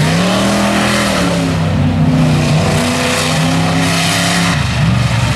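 Lifted 4x4 mud truck's engine revving as it drives through the mud bog. The pitch climbs, then rises and falls several times before dropping back near the end.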